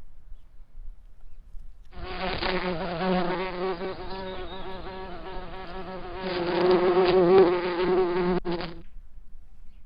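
A fly buzzing close by, its pitch wavering as it circles. It starts about two seconds in and cuts off abruptly near the end.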